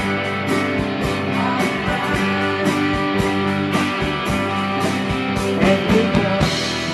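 Live rock band playing an instrumental passage: electric guitars ringing over a steady beat of drum hits.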